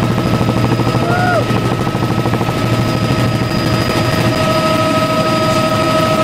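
Light helicopter in flight, heard from inside the cabin: steady engine and rotor noise with a fast rotor beat under a steady high whine. A short tone bends up and back down about a second in.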